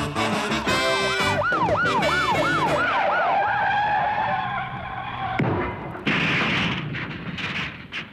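A siren-like wail that rises and falls about twice a second, over the tail of brass music, followed by a stretch of rough, noisy bursts near the end.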